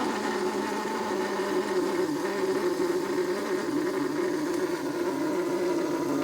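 Bialetti Mukka Express stovetop cappuccino maker spraying steadily under steam pressure: coffee forced up and sprayed through the top chamber, the sign that the brew is ready.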